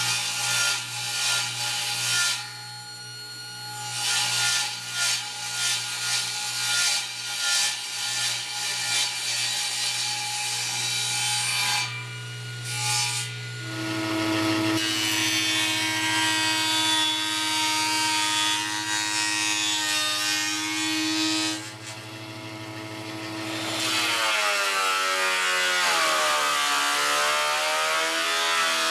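Table saw ripping wood strips to thickness, with the motor humming steadily under the cuts. Near the end the motor hum stops and the sound changes, sweeping in pitch.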